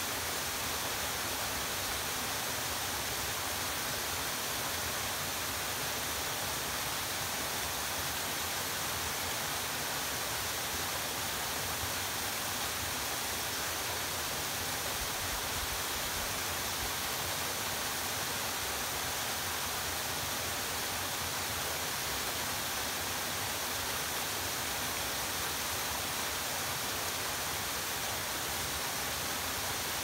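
Narrow two-tier waterfall pouring down a rock face: a steady, unchanging hiss of falling water.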